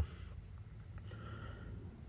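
Quiet pause: a faint low background hum, with a soft click about a second in.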